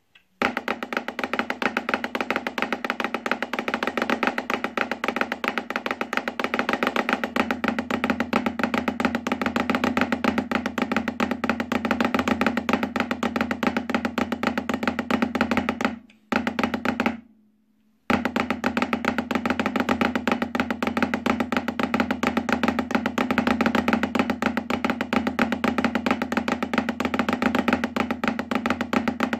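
Snare drum played with wooden sticks in a fast, even stream of flams grouped in ones, twos and threes. The playing breaks off about sixteen seconds in and resumes about two seconds later.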